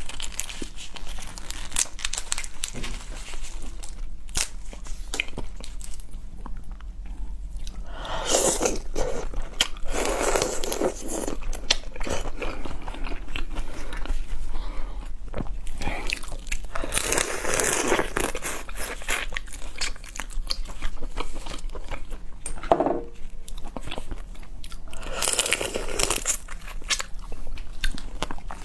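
A person biting and chewing food with crunching sounds: many quick crisp clicks, and a few louder stretches of chewing.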